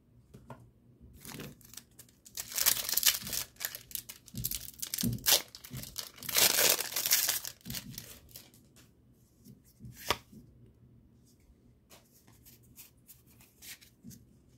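A foil Pokémon TCG booster pack wrapper being torn open and crinkled, in rough bursts over several seconds. Then a few light taps as the cards are handled.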